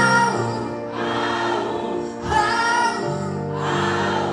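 Music: a song with layered singing voices holding drawn-out notes over sustained bass notes.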